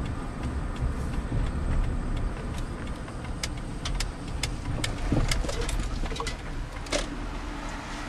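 A car driving, heard from inside the cabin: a steady low rumble of engine and road noise, with scattered sharp clicks.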